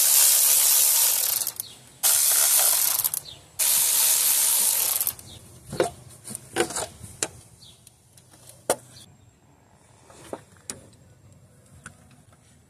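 Three loud hissing bursts of a second or so each, then scattered light clicks and knocks of tools and metal parts being handled, during work on an engine's top end.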